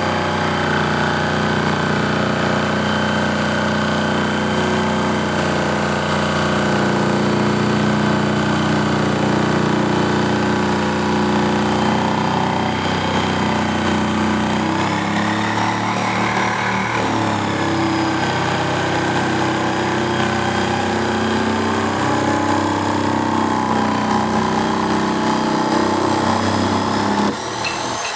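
Electric jigsaw cutting through a 1x8 wooden board along a pencil line. It runs steadily with its pitch wavering a little under load, then stops shortly before the end.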